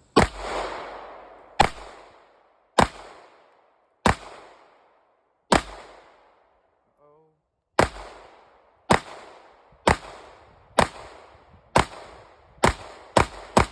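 Canik METE 9mm pistol being fired at a range: thirteen single shots, each with a short echoing tail. They come about a second and a half apart at first, then after a pause of about two seconds the pace picks up to roughly two shots a second near the end.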